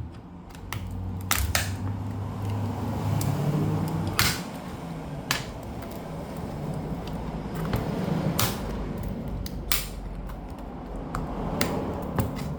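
Sharp plastic clicks and snaps, about ten spread irregularly, over low rubbing and handling noise as a laptop's plastic clips and parts are pried apart by hand.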